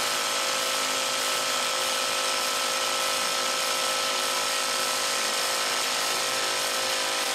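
A small motor running steadily: an even whir and hiss with a constant-pitch whine, unbroken at one level.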